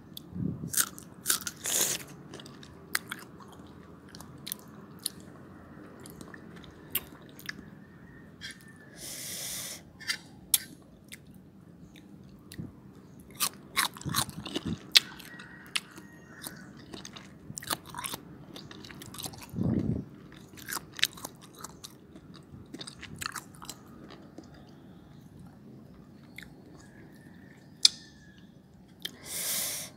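A person biting and chewing crisp slices of unripe young mango, with irregular crunches throughout and a few longer noisy bursts.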